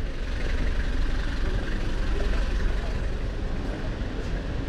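A road vehicle passing close by: a steady low engine rumble with tyre and road noise, swelling in at the start.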